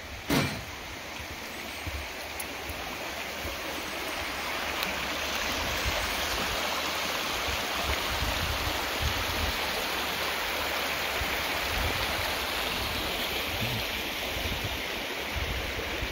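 Shallow creek water rushing over rocks and a debris jam: a steady rush that swells over the first few seconds and then holds. A single footstep thump on the wooden footbridge right at the start.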